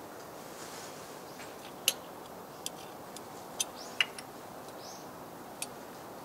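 Hand tools clicking and clinking against metal under a van during an oil and oil-filter change: a handful of irregular, sharp clicks, the loudest about two seconds in and again about four seconds in.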